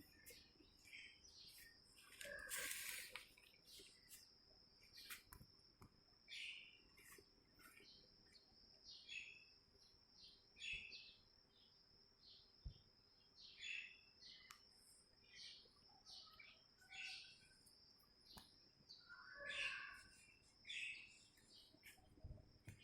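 Faint bird chirps, short and high, every second or two, over a thin steady high-pitched tone.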